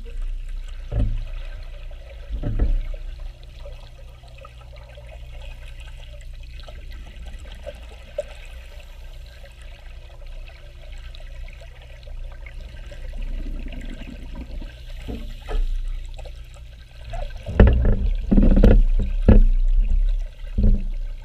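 Pool water and scuba exhaust bubbles heard underwater: a steady low rumble with two short gurgles in the first few seconds, then a loud run of bubbling near the end, typical of a diver exhaling through a regulator.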